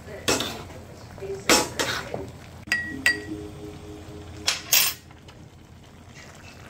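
Cooking utensils clattering: a spatula scraping in a wok, then two sharp, ringing clinks of a spoon against a glass bowl of cornstarch slurry a little under three seconds in, and two more scrapes near five seconds.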